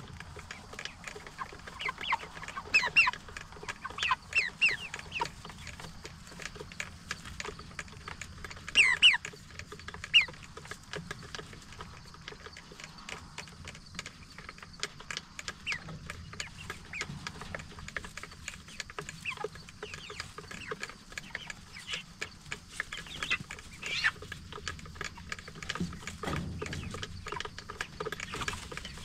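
A flock of Cornish Cross broiler chickens making short calls throughout, with louder bunches of calls a couple of seconds in and again around nine seconds.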